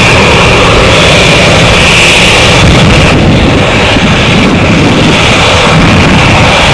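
Airbus A320-214's twin CFM56 turbofan jet engines running, a loud, steady roar.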